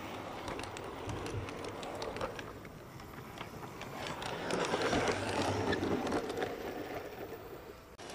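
LGB G scale model train coaches rolling past on garden railway track, the wheels rattling with many small clicks over the rails. It grows loudest about halfway through as the cars pass close.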